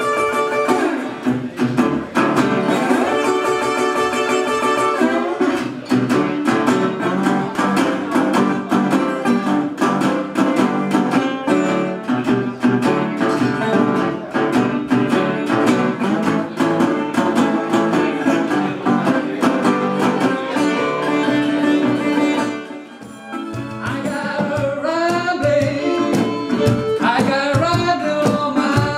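Live acoustic blues band: fingerpicked resonator guitar with fiddle, hand percussion and a man singing. The playing drops back briefly a little over 20 seconds in, then picks up again with gliding notes.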